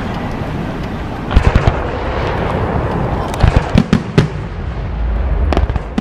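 Aerial firework shells bursting over a steady rumble of the display, with sharp bangs: a few about a second and a half in, a quick cluster around three and a half to four seconds, and another near the end.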